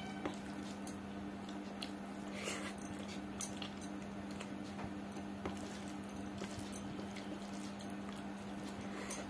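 Close eating sounds from a person eating khichdi by hand: chewing and small mouth clicks, with fingers mixing soft rice on a steel plate. A steady low hum runs underneath.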